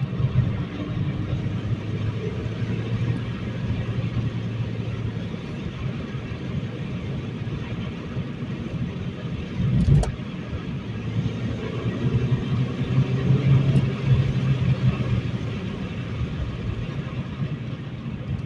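Honda Civic Si's 2.0-litre four-cylinder engine and road noise while driving, the engine note pulling steadily, easing off, then pulling again. A single sharp thump about halfway through.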